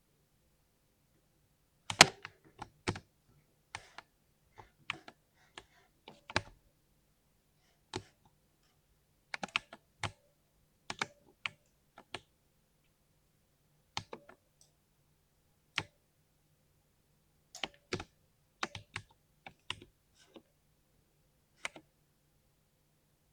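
Keystrokes on a 60% mechanical keyboard with a deep 'thock': single presses and short runs of two to four keys at irregular intervals, with pauses of a second or two between, the loudest about two seconds in.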